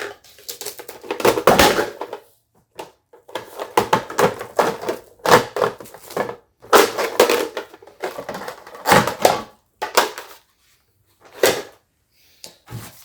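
Plastic crinkling and rustling in irregular bursts with short pauses between, as the plastic cable organizers and their packaging are handled.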